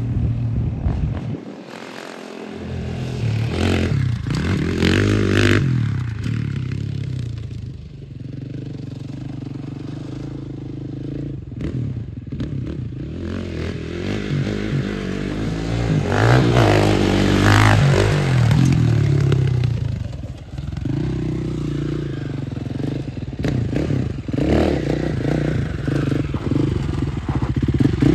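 KTM 450 sport quad's single-cylinder four-stroke engine revving up and down as it is ridden hard, its pitch climbing and dropping as it accelerates and slows and as it comes closer and moves away.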